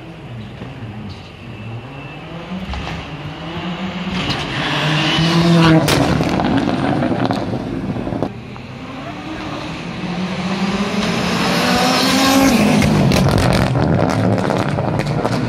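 Rally car engines revving hard under acceleration as the cars approach and pass, the pitch climbing and then falling away, with sharp crackles at the loudest moments. It builds twice: once to a peak about six seconds in, then again after a sudden drop, peaking near the end.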